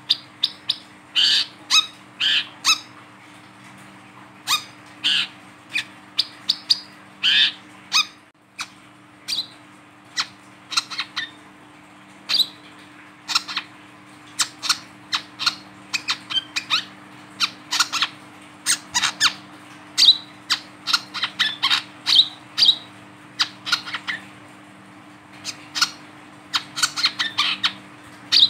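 Male brown-throated sunbird giving sharp, short chirping calls in quick irregular runs, broken by brief pauses.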